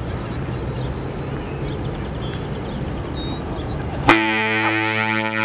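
Steady low rumble and outdoor noise, then about four seconds in a large freighter's horn sounds suddenly: a loud, deep, steady blast of several tones together that holds on.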